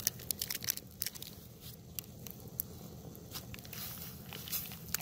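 Small wood campfire crackling under a pot, with irregular sharp pops and snaps.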